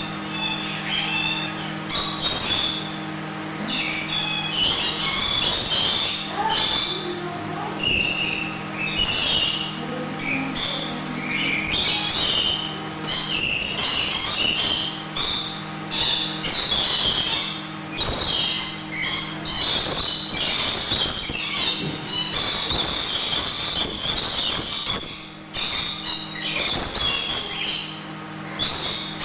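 Lorikeets screeching and chattering, shrill calls in quick irregular bursts with short gaps, over a steady low hum.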